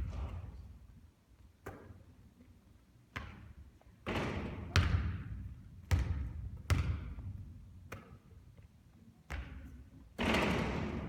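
Basketball bouncing on a court floor: about eight separate thuds at irregular intervals, each with a short echo.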